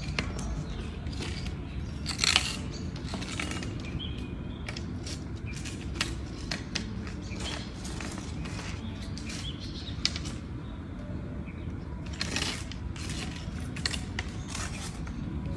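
Irregular scrapes, taps and rustles of a thin wooden stick dragged and knocked about on brick paving as a bear cub chews and plays with it, over a steady low outdoor rumble. The loudest scrapes come a couple of seconds in and again near the end.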